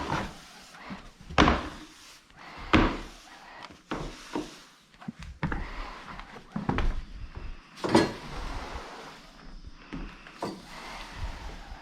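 Broom sweeping under furniture, with a series of knocks and thuds at irregular intervals as it bumps against wood, and softer brushing between them.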